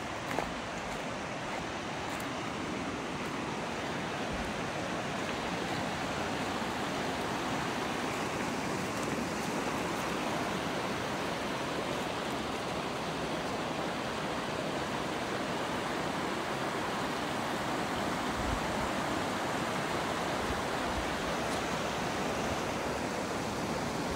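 Mountain creek running over rocks: a steady rush of flowing water that grows a little louder over the first several seconds, then holds.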